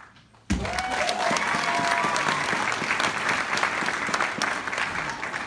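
Audience applauding, breaking out suddenly about half a second in, with a few cheering voices at the start of the clapping; it begins to die away near the end.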